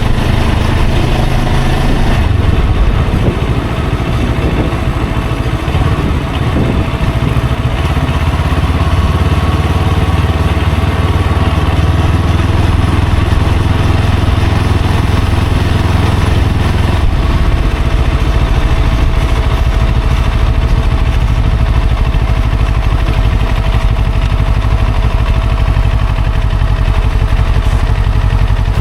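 Motorcycle engine running steadily while riding in traffic, a loud low rumble whose level shifts a couple of times, about two seconds in and again past the halfway mark.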